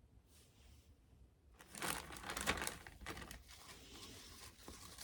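A bag crinkling and rustling, starting about a second and a half in and going on as a dense run of crackles.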